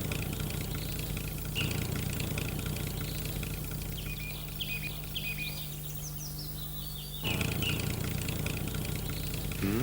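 A steady low vehicle engine hum, changing abruptly twice, with birds chirping over it in the middle.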